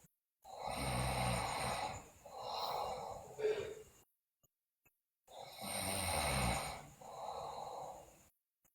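A sleeping girl snoring loudly: two snores about five seconds apart. Each is a rough, rattling breath followed by a second, softer breath.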